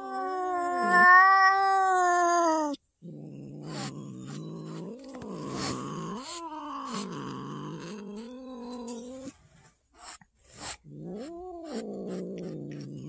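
A domestic cat yowling and growling in long, wavering calls. The first call is the loudest and highest and cuts off suddenly about three seconds in; lower, drawn-out growling yowls follow, with short breaks near the end.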